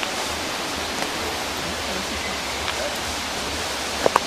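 Steady, even rushing hiss with no clear source, with two or three short clicks about four seconds in.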